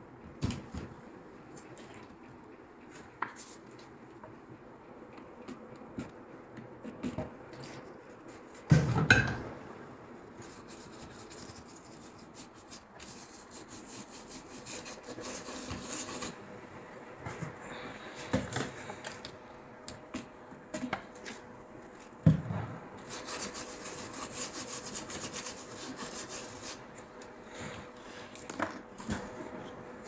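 Handling noise from a laptop motherboard and its heatsink-and-fan assembly being moved and worked on over a repair mat: rubbing and scraping with scattered clicks. A sharp double knock comes about nine seconds in and another knock at about twenty-two seconds.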